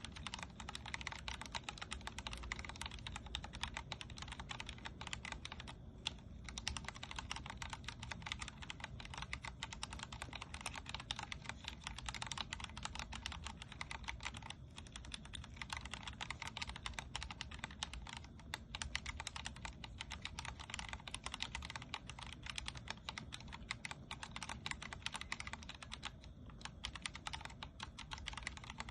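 Steady, fast typing on a Vortex Core 40% mechanical keyboard with Cherry MX Speed Silver linear switches: a dense run of keystroke clicks, broken by a few short pauses.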